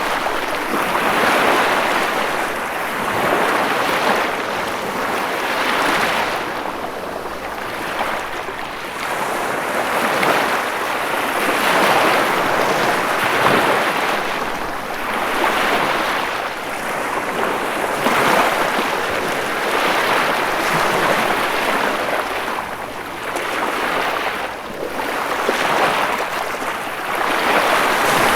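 Ocean surf: a steady rush of waves breaking and washing back, swelling and easing every two to three seconds.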